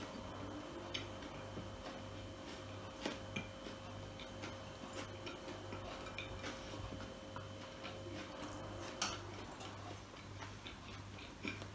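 Chewing and mouth noises of a man eating a burger and fries, with scattered soft clicks. Under them a low hum pulses evenly about twice a second.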